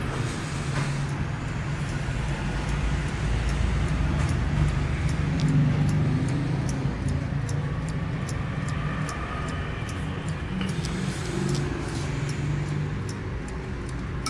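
Mechanical spring-wound wall clock ticking steadily with quick, even, light ticks, over a louder steady low rumble.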